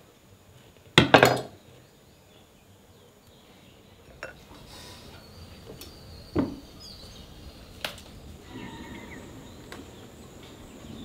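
Metal knife clinking and knocking against a metal baking pan and plate: a loud cluster of sharp knocks about a second in, then a few lighter single clicks.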